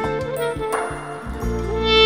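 Clarinets playing a Turkish oyun havası dance melody over keyboard accompaniment. The bass line and beat drop in again about three quarters of the way through.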